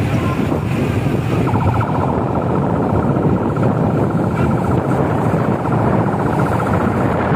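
Wind buffeting the microphone over vehicle and road noise, recorded from a moving vehicle. A rapid buzzing tone joins about a second and a half in and fades near the end.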